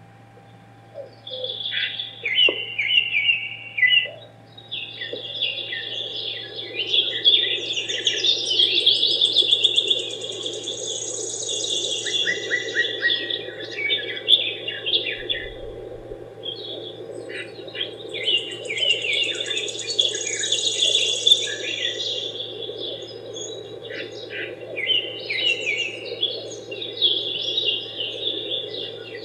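Many birds chirping and singing together, with quick overlapping chirps and trills, over a steady low hum.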